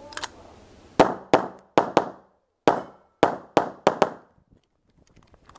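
A semi-automatic pistol firing a rapid string of about nine shots, in quick pairs and singles, starting about a second in and ending about four seconds in. This is a competitor engaging targets during a practical-shooting stage.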